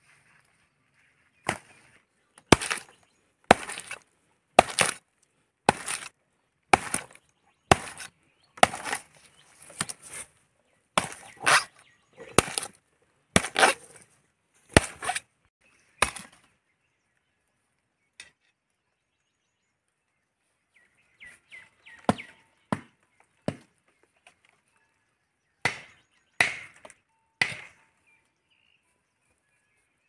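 Machete chopping into a section of palm trunk. Sharp strikes come about once a second for the first half, then after a pause there are a few lighter knocks and three more strong strikes near the end.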